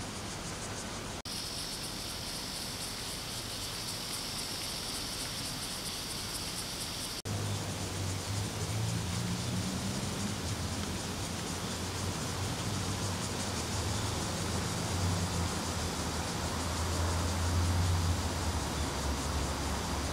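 Outdoor background noise. A steady high insect buzz is heard at first; after an abrupt cut it gives way to a louder low rumble, like passing traffic.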